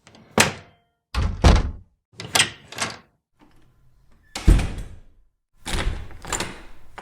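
A run of separate door sounds, mostly doors shutting with a heavy thud and some slamming, about seven impacts with short silences between them. The loudest and deepest thuds come about a second and a half in and again about four and a half seconds in.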